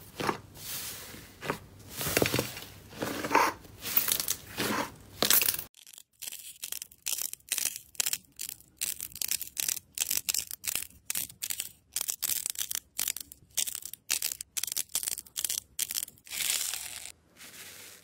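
Thick slime squished and pressed under the fingers, with soft irregular squelches. About six seconds in this gives way to a long run of crisp, sharp crunches, roughly three or four a second, as small pink clay balls are crushed one by one between the fingers.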